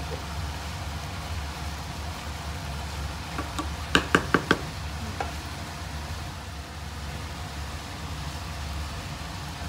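A wooden spoon knocks four times in quick succession against a metal cooking pot, with a few lighter taps just before and after. A steady low hum runs underneath.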